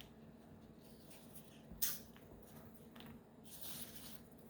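Map puzzle pieces being handled: one sharp click a little under two seconds in, a fainter tap about a second later, and a short rustle near the end.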